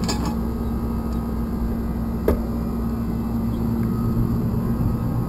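Steady low rumble of a bicycle rolling over pavement, with a constant faint hum running under it. One sharp click a little over two seconds in.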